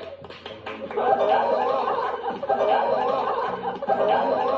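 People laughing and chuckling, with some talk mixed in, louder from about a second in.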